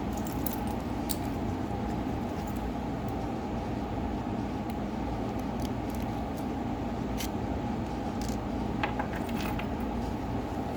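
Scattered light clicks and taps of small tools and phone parts being handled, over a steady low hum.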